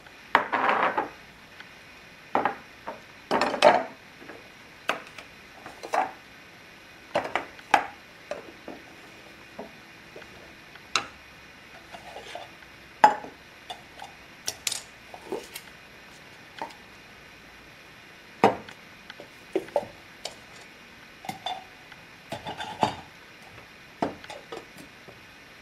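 Laboratory calorimeter cups, a metal inner cup and plastic outer cups, being picked up, nested and set down on a table, with a lid fitted: irregular clinks and knocks.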